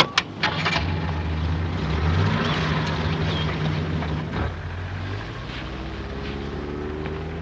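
Several sharp knocks like car doors shutting, then a car engine starting and running steadily; its note rises about two seconds in and eases after about four and a half.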